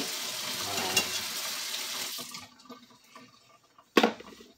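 Water running from a kitchen tap, shut off about two seconds in, then one sharp knock near the end.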